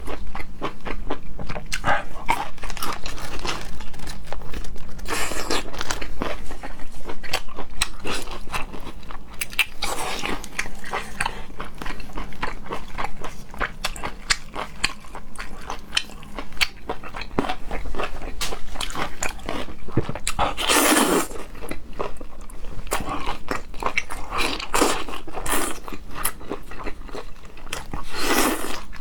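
Close-miked chewing and biting of cooked octopus: a steady stream of wet mouth clicks, smacks and small crunches, with a few longer, louder wet sounds, the loudest about two-thirds of the way through.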